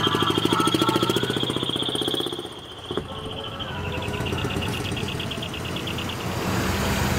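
A decorated truck's diesel engine running with a rapid pulsing beat as the truck passes close by, fading out about two and a half seconds in. A weaker pulsing follows, then a steady low engine hum near the end.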